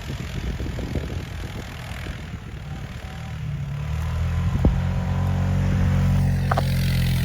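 A vehicle engine pulling a towed sled rider through snow, rumbling at first and then coming up onto a steady, louder drone about halfway through as the driver accelerates to sling the rider.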